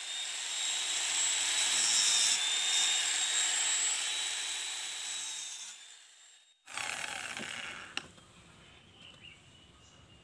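Small electric drill whining at speed as it bores a hole through the coconut-shell handle for a locking pin, then winding down and stopping about six seconds in. Quieter handling noises follow, with a sharp knock about eight seconds in.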